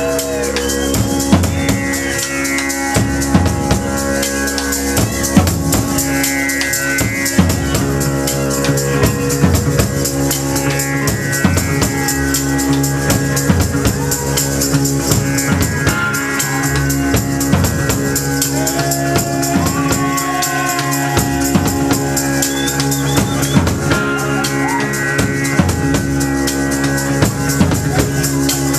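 Live rock band playing, a drum kit keeping a steady, busy beat under sustained guitar.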